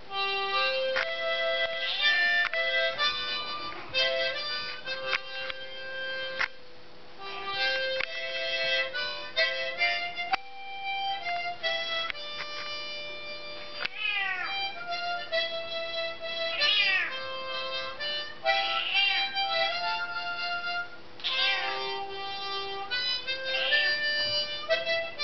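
A harmonica played in short held notes and chords, with a domestic cat meowing along to it. The cat gives several long meows that glide in pitch over the playing.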